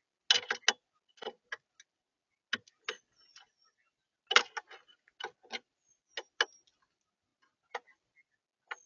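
Birds feeding at a feeder close to the microphone: irregular sharp taps and clicks of beaks pecking at seed on the feeder, some in quick clusters, with a few faint high chirps.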